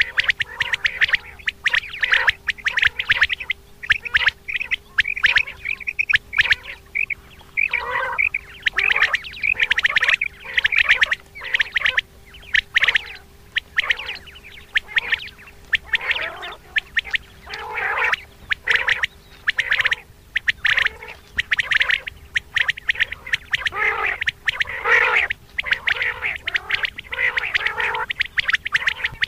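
Common quail calling over and over in quick runs of short, sharp notes, with a faint steady hum underneath.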